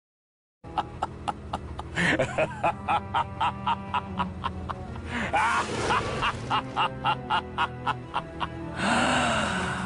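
Evil-laugh sound effect: a villain's cackle in quick repeated 'ha' pulses over a sustained musical backing. It starts just under a second in and swells near the end.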